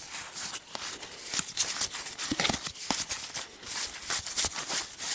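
A stack of Pokémon trading cards being flicked through quickly by hand: short, dry card-on-card flicks, several a second, at an uneven pace.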